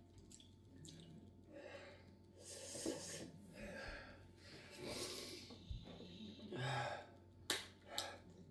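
Quiet breathing from two men, with breathy gasps and sighs, their mouths burning from Carolina Reaper chilli. Two short sharp clicks come near the end.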